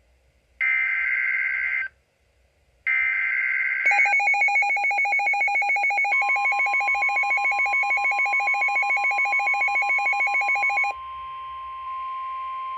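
Emergency Alert System SAME header data bursts: two screeching digital warbles about a second long with a second's pause between them. Then a rapid pulsing electronic alarm beeps about seven times a second, joined about two seconds later by a steady alert tone. The pulsing cuts off at about 11 seconds and the steady tone carries on.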